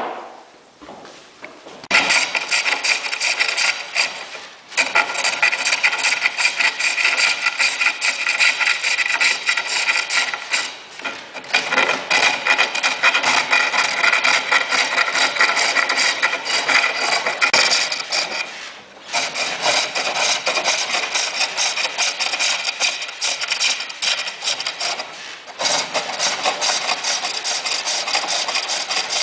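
Lathe turning: a cutting tool scraping against the spinning workpiece. It starts about two seconds in and runs in several long passes broken by short pauses.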